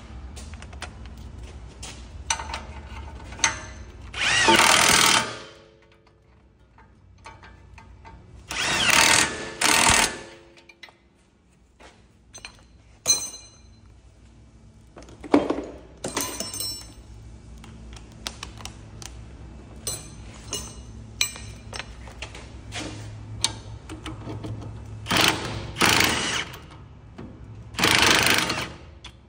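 Power impact wrench running in short bursts, about eight in all and the longest over a second, as nuts are run on and tightened. Sharp clinks of tools and metal parts come between the bursts.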